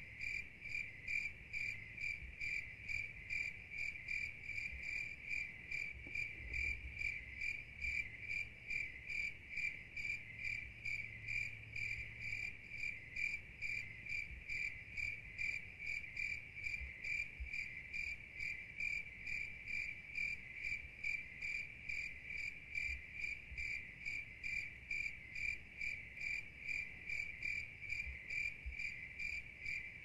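A cricket chirping steadily, high-pitched even pulses at about two to three chirps a second, with no let-up.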